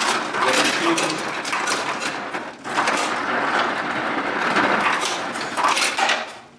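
Refrigerator door ice dispenser running, ice cubes clattering into a plastic cup, in two runs with a short break about two and a half seconds in; it stops near the end.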